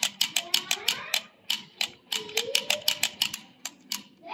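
Rapid, uneven run of sharp clicks, about six to eight a second, with short breaks about a second and two seconds in, thinning out near the end.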